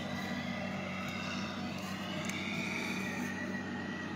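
Snow-clearing machine's engine running steadily: an even low hum without breaks.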